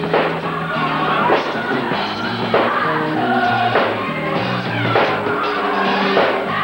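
Gospel music sung by a group of singers over a band, with a moving bass line and drum hits.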